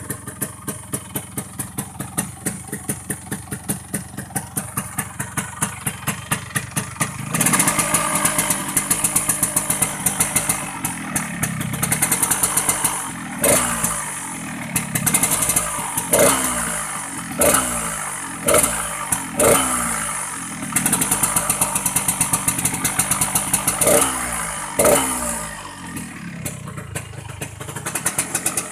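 Yamaha RX-King's two-stroke single-cylinder engine making its rough, loping 'ngorok' (snoring) exhaust note. It idles with an even pulse at first, then about seven seconds in it runs up, and it is blipped repeatedly, each rev rising and falling quickly.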